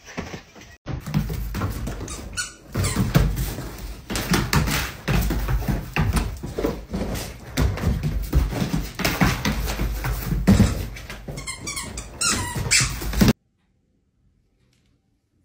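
Dogs playing rough on a wooden floor: quick thumps and scrabbling of paws, with a few high squeaks, the loudest about two and a half seconds in and again near the end. The sound cuts off suddenly into near silence for the last two seconds.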